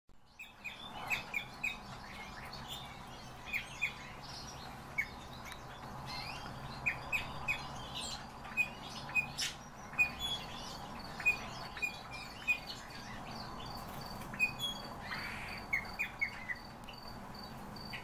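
Small caged songbirds chirping: many short, sharp, high calls at an uneven pace, sometimes several in quick succession, over a steady background hum.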